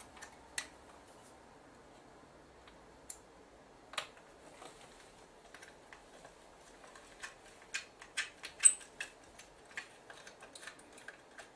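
Small sharp clicks and taps from handling the camcorder's plastic LCD screen housing and a screwdriver, scattered at first and coming more often in the second half, the loudest click near the end.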